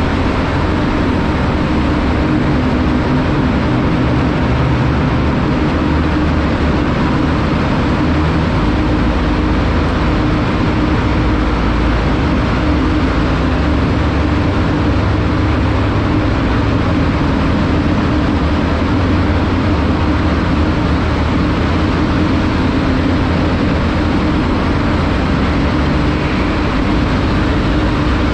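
TVS Apache 200 single-cylinder motorcycle engine running at a steady cruise, mixed with wind and road noise, inside a road tunnel.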